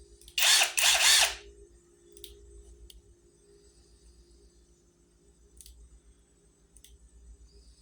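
Cordless 1/2-inch drive impact wrench triggered with no load, its motor whirring for about a second in two quick pulses, followed by a few faint clicks.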